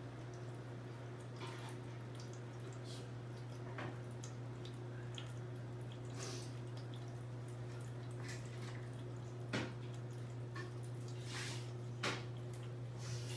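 Scattered light clicks and taps, irregular and a few seconds apart, over a steady low hum.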